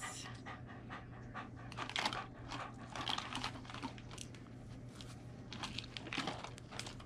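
German Shepherd panting and sniffing right at the microphone, a run of irregular short noisy breaths.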